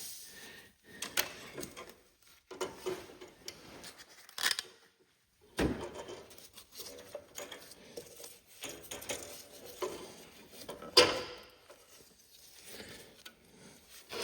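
Hand work on a garden tractor's brake linkage while a brake spring is pulled into place with a rope: scattered metal clinks and knocks with rustling between them, two sharper knocks about a third of the way in and again near the end.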